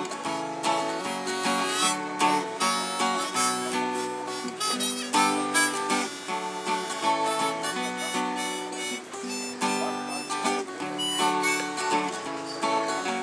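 Strummed acoustic guitar with a harmonica played from a neck rack over it, in a steady rhythm with sustained harmonica notes.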